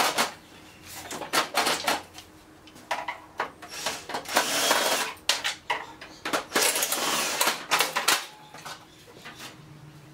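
Cordless drill-driver run in a series of short bursts, about seven, with a longer run of about a second near the middle, backing screws out of the plastic panels of a copier finishing unit.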